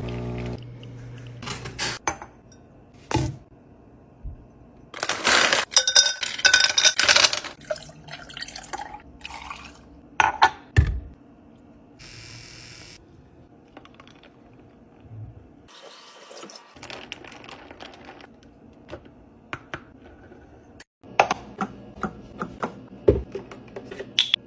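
Containers and kitchen items being handled for restocking: scattered clicks, knocks and clinks, with a longer rush of pouring or rustling about five to seven seconds in and a quick run of clicks near the end.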